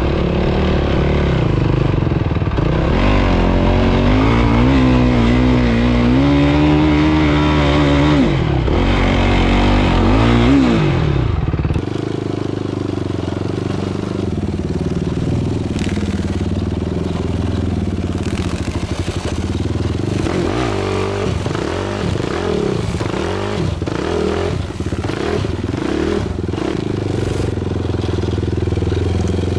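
Yamaha YFZ450R sport quad's single-cylinder four-stroke engine revving up and down, its pitch rising and falling. About twelve seconds in the sound changes abruptly to a rougher, less even engine note with frequent rattles and knocks.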